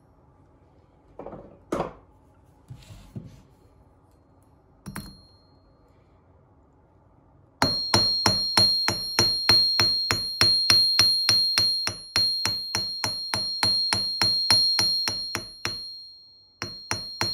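Hammer striking a copper wire on an anvil, flattening the end of a brooch pin: a fast, even run of ringing blows at about four a second for about eight seconds, a short pause, then a few more blows near the end. Before the hammering, a few light knocks and a single clink as the wire is set on the anvil.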